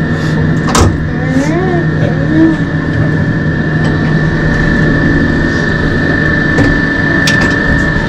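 A steady low hum with a thin high whine held throughout, and faint voices in the background.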